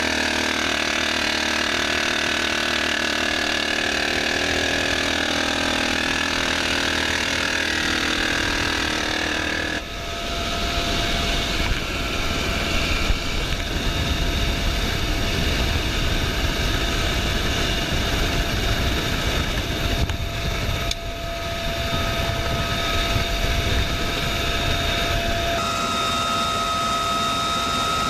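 Helicopter cabin noise from the open gunner's door: turbine engine and rotor running steadily. About ten seconds in the sound changes abruptly to a rougher rush with more low rumble and wind.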